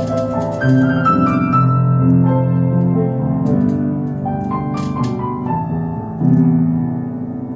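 Piano-led instrumental music: a melody of changing notes over held low chords, with light high clicks scattered through.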